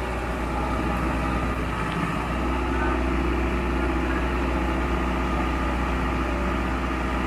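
Diesel tractor engines, one of them a Sonalika DI 60, running steadily under heavy load as two chained tractors pull against each other in a tug-of-war. The engine note gets a little louder about two seconds in.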